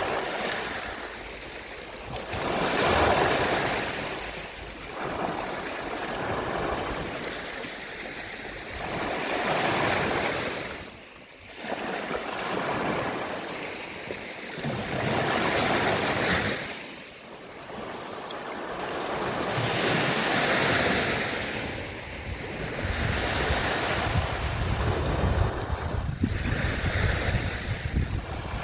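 Gentle sea waves washing onto a shore, each wave swelling and then drawing back, about every five or six seconds.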